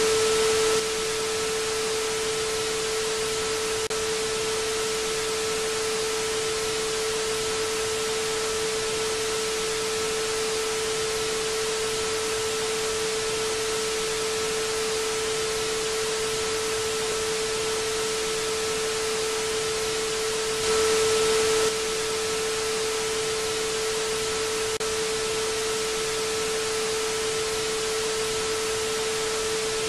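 Television static: a steady, even hiss of white noise with a constant hum-like tone running under it and a fainter higher tone above. It jumps louder for about a second right at the start and again about twenty seconds in.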